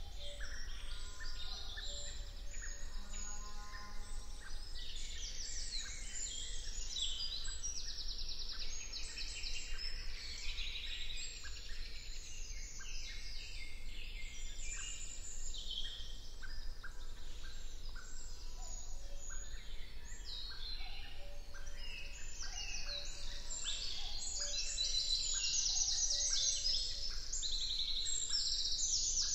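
Woodland birdsong: several songbirds singing over one another with whistles, chirps and fast trills, growing busier near the end, over a steady low hum.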